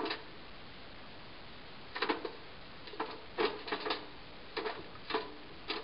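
Chicken hanging head-down in a stainless steel killing cone while being slaughtered, giving short croaking calls at irregular intervals, about eight in six seconds.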